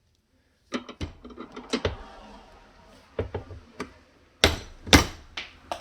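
Metal hand tools being handled: a string of sharp clanks and knocks, the two loudest about four and a half and five seconds in, as the broken ratchet and torque-test gear are moved about.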